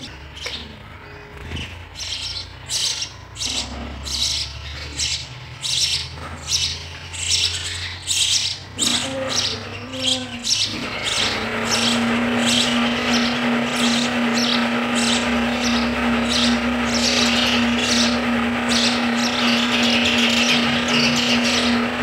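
Sparrows chirping in short repeated calls, about three or four a second. About halfway through, as an adult arrives at the nest with food, this becomes a louder, continuous chorus of the chicks begging. A steady low hum comes in at the same moment.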